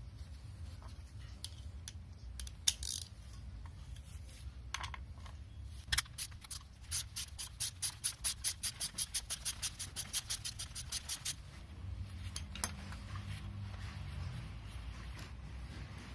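Ratchet wrench clicking in a fast, even run for about four seconds, about seven clicks a second, as a bolt is backed out of the engine; a few single metallic clicks come before it.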